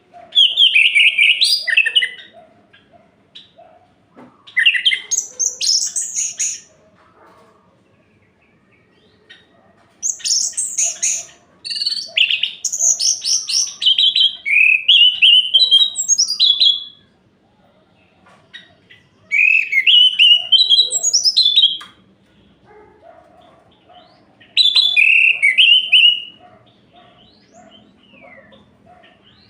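Orange-headed thrush singing: about six phrases of quick, varied whistled and warbled notes, each lasting one to a few seconds, separated by short pauses.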